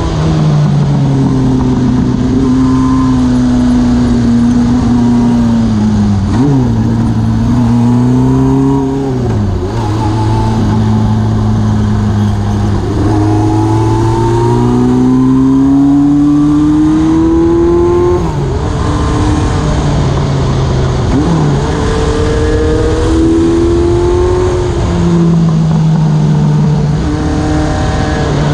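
Motorcycle engine running under way, loud and continuous, its pitch climbing and easing with the throttle. Several times the pitch jumps or drops abruptly, as the rider changes gear.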